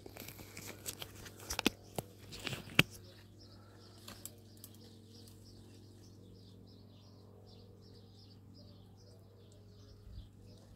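A few sharp clicks and knocks in the first three seconds, then a steady series of short high chirps about three a second over a low steady hum.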